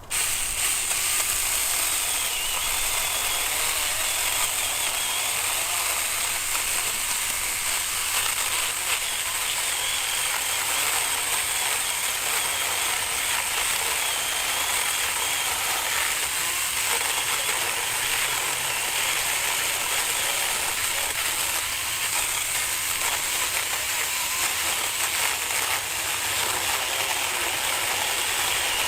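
Saker mini electric chainsaw, a 20-volt battery-powered mini saw, starting up abruptly and running steadily while cutting through a log, its motor pitch wavering slightly under load.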